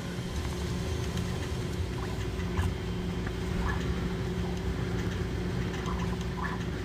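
Bambu Lab 3D printer running mid-print: a steady mechanical hum from its fans and motors, with a few brief higher whirs as the toolhead moves.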